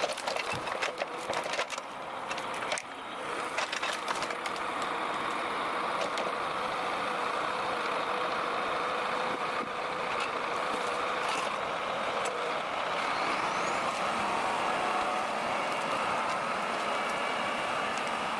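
Belarus MTZ-1221.2 tractor's diesel engine running steadily while hauling, with a few sharp knocks and clatters in the first three seconds.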